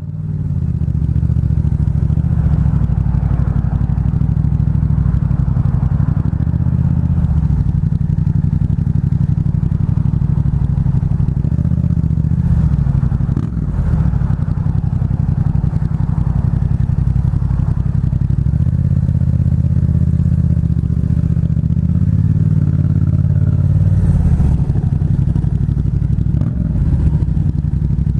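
Yamaha MT-07's 689cc parallel-twin engine with an aftermarket Black Widow exhaust, running steadily at a low, even pitch. Heard through a microphone inside the rider's helmet.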